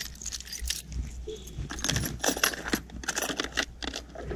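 A bunch of car keys jangling and clinking as they are handled and put into a small plastic waterproof lockbox, a rapid run of short metallic clicks.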